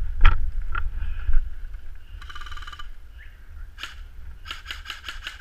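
Muffled airsoft gunfire: a quick string of about seven sharp shots near the end, with single shots or clicks earlier and a brief buzz about two seconds in. A low rumble of movement runs underneath, dulled by the camera's waterproof housing.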